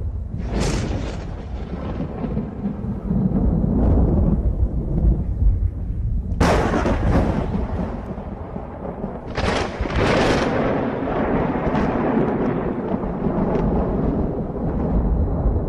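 Thunder: sharp cracks near the start, about six seconds in, and twice around nine to ten seconds in, each rolling into a heavy low rumble that continues throughout.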